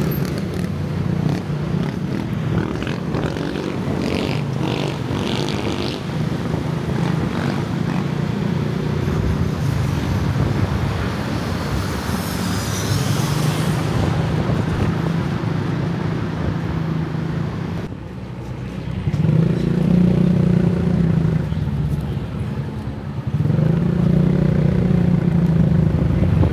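Motorcycle taxi under way, its small engine running with road noise. The engine eases off about two-thirds of the way through, then pulls harder twice.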